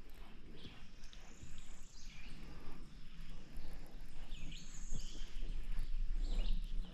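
Outdoor background noise, a steady low rumble, with faint bird chirps now and then.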